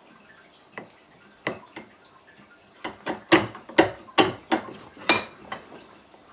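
Steel bench vise being worked to press ball bearings into a 3D-printed plastic block: sharp clicks and knocks, a few at first, then a quick run of louder ones about three seconds in. The loudest, near the end, is a metallic clink with a short ring.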